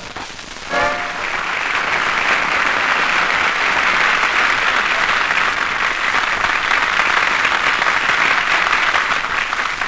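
Studio audience applauding steadily, after the last notes of the band music fade out about a second in.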